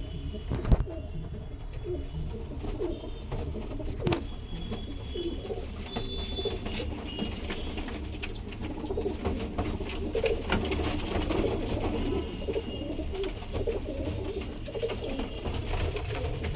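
Domestic pigeons cooing repeatedly in low, wavering calls, with a single sharp knock about a second in.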